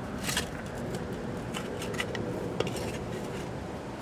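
Hand trowel digging in soil beside a plastic valve box: scattered short scrapes and clinks against a steady background.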